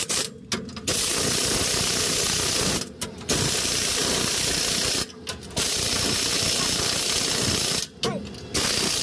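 Pneumatic impact wrench hammering in four bursts of about two seconds each with short pauses between, running down the U-bolt nuts that clamp a pickup's rear leaf spring to the axle.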